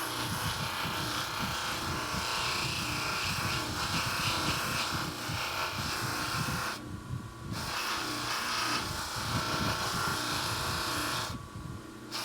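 Bench buffing wheel running with a stainless steel faucet ball held against the compound-loaded wheel, a steady motor whir with a rubbing hiss of the part being polished. The hiss cuts out briefly twice, about seven seconds in and near the end, while the motor keeps running.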